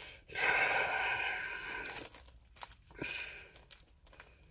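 A rustle of close handling noise lasting about a second and a half, followed by a few faint clicks.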